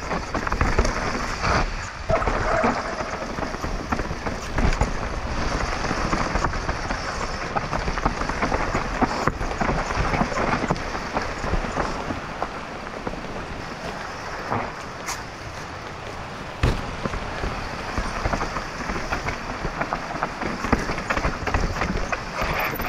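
Mountain bike riding down a rough dirt trail: tyres running over dirt and stones and the bike rattling, with a few sharp knocks along the way.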